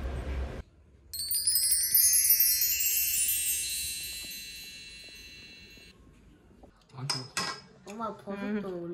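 A shimmering wind-chime sound effect: a cascade of many high ringing tones starting about a second in and fading away over about five seconds. Near the end, dishes clink.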